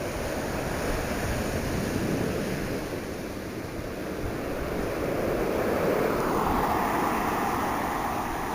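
Surf on a stone beach: waves breaking and the backwash dragging and rattling the stones as it pulls back, swelling twice, the second surge louder.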